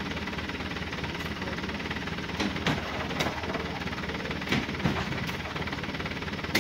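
Oil palm fruit bunches being speared with a pole and heaved into a small truck's steel bed: several knocks and thumps over a steady low rumble.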